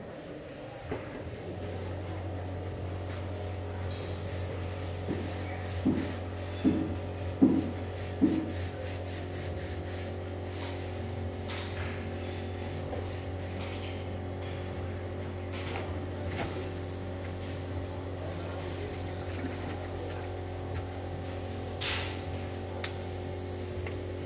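A steady low machine hum that starts about a second in, with four short pitched sounds in quick succession about six to eight seconds in and a few faint clicks later.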